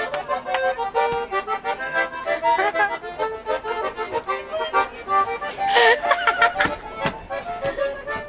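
Piano accordion playing a tune, with shifting chords and melody notes. A brief louder burst stands out about six seconds in.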